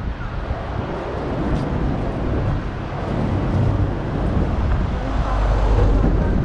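City road traffic: a steady wash of vehicle and tyre noise, with a deep engine rumble building toward the end as a heavier vehicle draws near.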